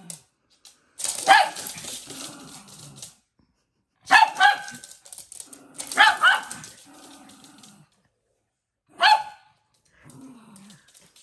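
Two small dogs barking at play: four bursts of sharp barks, the loudest about a second in and around four and six seconds, a single bark about nine seconds in, with low growling between them.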